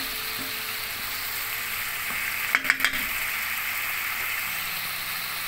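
Onion, garlic, lemongrass, mushrooms and tomatoes sizzling steadily in hot olive oil in a pan, with three quick clicks about two and a half seconds in.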